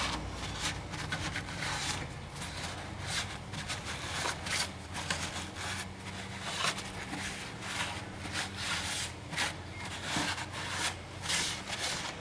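Rag wiping and scrubbing a BMW intake to clean off grime after a spray of carburetor cleaner: a run of short, uneven rubbing rustles. A steady low hum runs underneath.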